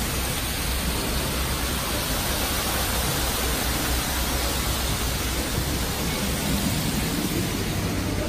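Steady rushing noise with a flickering low rumble: wind buffeting the microphone on an open ship's deck, mixed with the splash of water pouring from splash-pad fountains.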